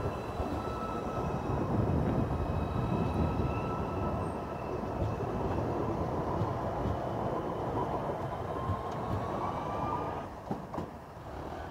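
An electric tram running past: a steady rumble of wheels on rails with a faint electric whine whose pitch rises near the end, before the sound falls away.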